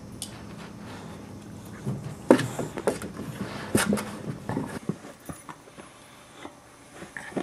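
Boxer puppies and an adult boxer play-fighting at close range: irregular knocks and scuffles of paws and bodies, most of them bunched together about two to five seconds in.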